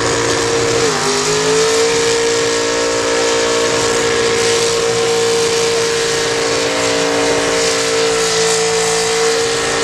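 Lifted mud truck's engine held at high revs while its big tires spin against the tow strap's load. The engine pitch dips about a second in, then climbs back and holds steady under the hiss of tires spinning.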